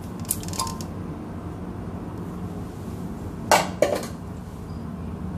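Kitchenware clinks and knocks as eggs are tipped from a small bowl into a blender jar. There are a few light clinks about half a second in, then two sharp knocks about three and a half seconds in.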